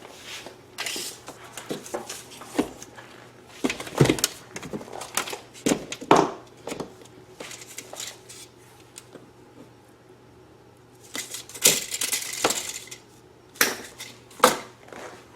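Scattered metallic clinks and knocks of tools and small parts being handled at a workbench, as a length of 1/4-inch rubber hose is measured and cut. About eleven seconds in there is a rasping hiss lasting about two seconds, followed by a few sharp clicks.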